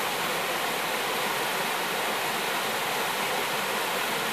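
Small waterfall cascading over rocks into a pool: a steady rush of falling water.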